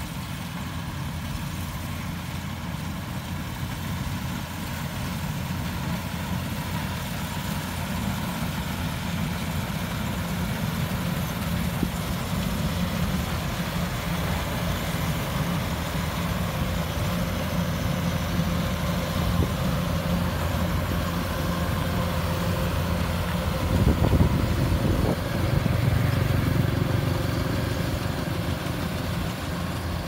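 Kubota DC-70 combine harvester's diesel engine and threshing machinery running steadily while cutting rice. The sound grows louder as the machine draws near and is loudest about three quarters of the way through, then eases slightly.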